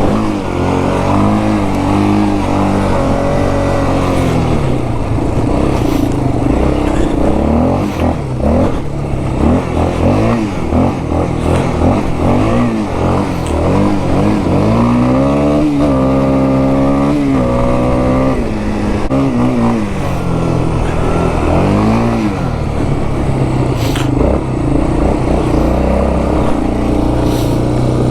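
2001 Yamaha Warrior 350 ATV's single-cylinder four-stroke engine on its stock exhaust, revving up and down over and over, with a long high rev about halfway through. It settles to a steady idle near the end.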